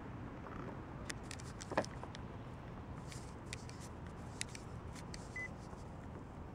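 Steady low rush of wind and lapping water around a kayak, with scattered light clicks and one sharper knock a little under two seconds in.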